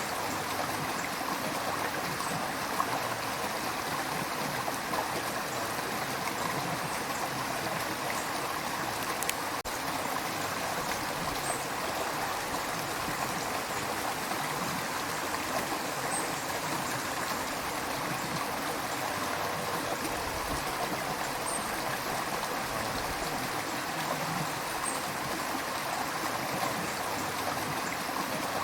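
A river flowing steadily over stones, a continuous rushing with some trickling and gurgling.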